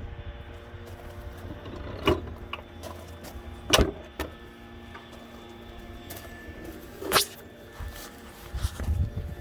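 An electric motor running with a steady whine and low rumble, broken by a few sharp clicks about two, four and seven seconds in.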